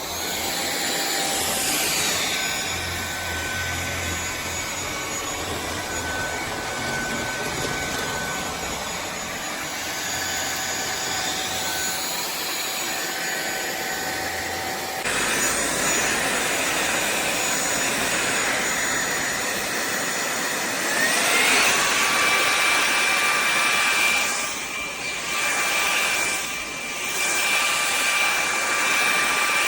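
A SunSare cordless stick vacuum cleaner runs with a steady rush of air and a motor whine. About two-thirds of the way through, its whine rises to a higher pitch and holds there, with a couple of brief dips in level near the end.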